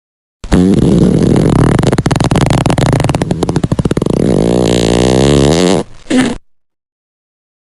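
A fart sound effect: one long, loud, fluttering fart of about five seconds starting half a second in, its pitch wavering toward the end, followed by a short extra burst before it stops.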